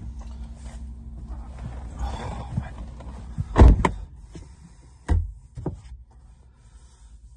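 Someone getting into a car's driver seat with rustling and shuffling, then the car door shutting with a thunk about three and a half seconds in. A lighter thump and a click follow as the sun visor is pulled down.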